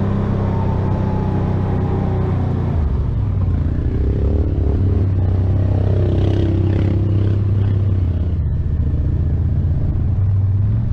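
Can-Am Outlander 850 ATV engine running under way, heard close from its front rack. The engine drops to a lower, steady speed about three seconds in and picks up again near the end.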